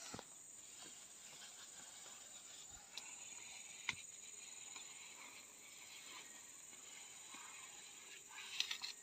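Faint, steady, high-pitched insect chorus. Over it come a few soft taps and scrapes from a barefoot climber coming down a tree trunk; the sharpest tap is about four seconds in.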